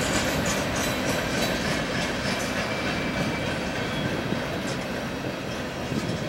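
Freight cars (boxcars and refrigerator cars) rolling past, their steel wheels rumbling and clattering on the rails. The sound slowly gets quieter as the train goes by.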